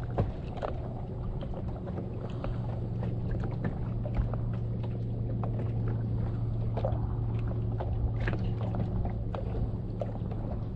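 Water moving against a fishing kayak on calm shallow water, under a steady low hum, with light scattered clicks.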